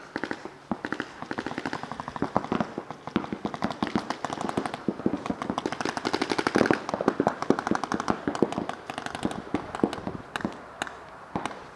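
Paintball markers firing rapid strings of shots: a dense, nearly unbroken popping at many shots a second, heaviest about six seconds in.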